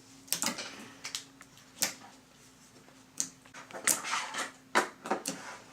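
Slime being handled and squished by hand, giving a string of sharp, irregular clicks and pops, with the loudest near the end.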